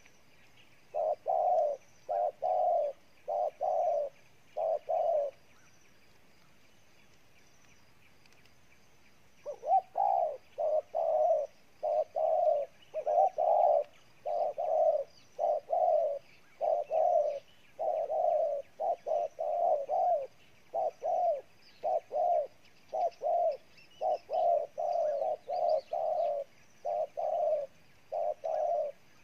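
Spotted dove cooing in short, repeated notes. It gives about six coos, falls silent for about four seconds, then keeps up a long, quick run of coos.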